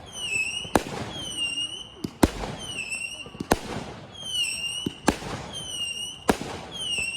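Firework cake firing a steady series of whistling shots: about one sharp bang every 1.3 seconds, each with a short high whistle that drops in pitch and then levels off.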